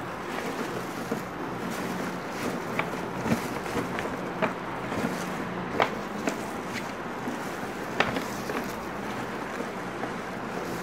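Tinsel garland and chart paper rustling and crinkling as they are handled, with scattered sharp crackles. A steady low hum runs underneath.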